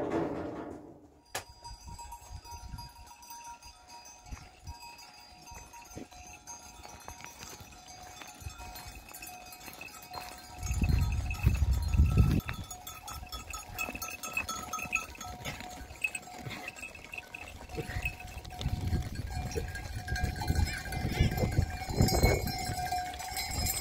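Livestock bells ringing steadily, as on a flock of sheep and goats. Bursts of low rumble come in about ten seconds in and again near the end.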